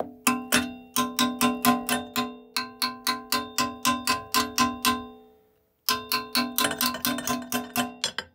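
Hammer striking the steel bottom plate of a Kimberly wood stove in quick strokes, about four a second, bending the plate open; each blow sets the steel stove body ringing. The hammering stops briefly about five seconds in, then starts again.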